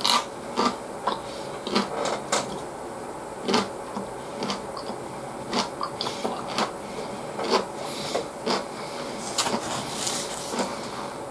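A man chewing a mouthful of gyudon (beef and rice) close to the microphone: irregular wet smacks and mouth clicks, about one a second, crowding together near the end.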